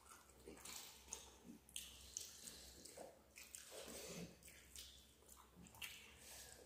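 Faint wet squishing of rice and fish curry being mixed by hand, with chewing, in a string of short soft smacks about every half second.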